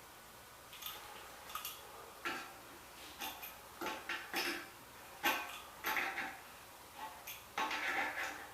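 Irregular metallic clinks and short scrapes of a wrench working a nut onto a toilet bolt, snugging it down by hand in short turns, with a quicker run of clinks near the end.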